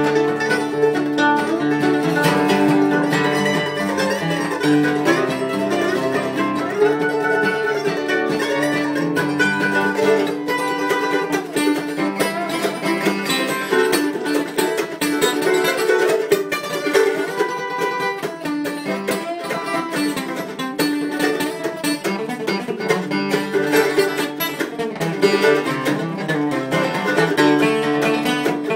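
Acoustic guitar and mandolin playing an instrumental tune together, with the mandolin picking quick notes over the guitar's steady strummed backing.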